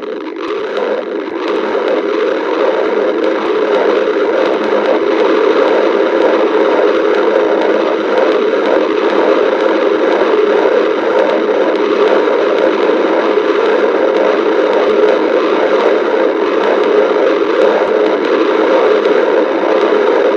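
Stomach growling: a continuous, loud growl that swells over the first few seconds and then holds steady.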